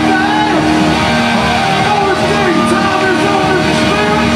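Funk band playing live: bass guitar, keyboards and drums, with long held keyboard notes under a moving melody line.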